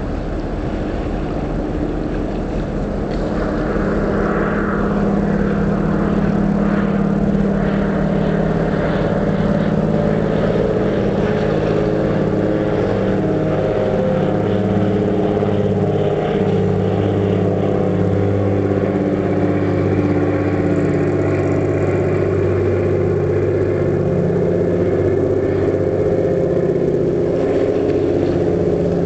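Celebrity Millennium cruise ship passing close by, its machinery giving a steady low drone with several held tones that grows a little louder a few seconds in.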